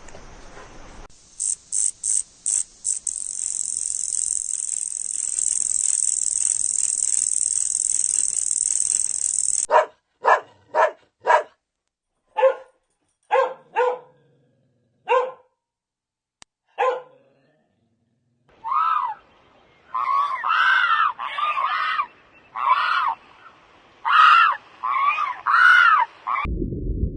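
A steady high hiss with a few quick pulses, then short, sharp bark-like animal calls spaced a second or so apart, then a run of louder, higher, rising-and-falling calls in quick groups.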